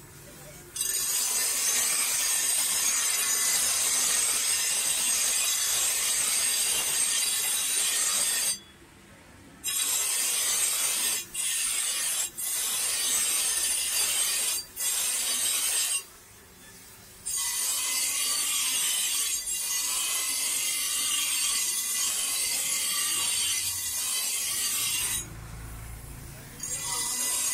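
Steel cleaver blade ground against a bench grinder's abrasive wheel: a loud, harsh, high grinding that stops each time the blade is lifted off, twice for about a second and several times briefly. Near the end the blade comes off for longer and only the grinder's low motor hum is left.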